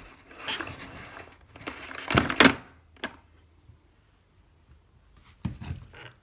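Handling noises: scattered rustling and short scrapes, one loud brief swish about two and a half seconds in, then a pause and a couple of dull knocks near the end.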